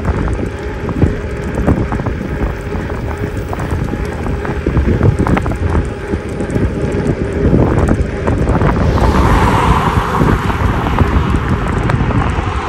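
Wind buffeting the microphone on a moving e-bike, a dense low rumble with scattered knocks. About nine seconds in, a rushing hiss builds as a vehicle passes on the road.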